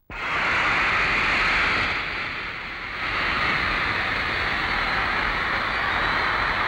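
Large crowd of fans screaming and cheering without a break, starting suddenly and easing slightly about two seconds in.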